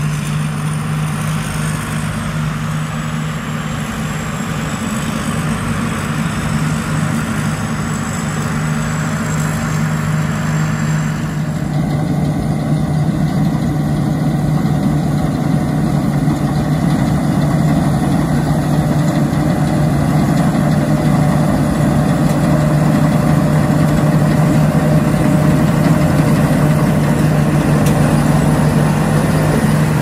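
Engine of a tracked rice combine harvester running steadily at constant speed while it cuts and threshes, a continuous drone that grows louder as the machine comes closer.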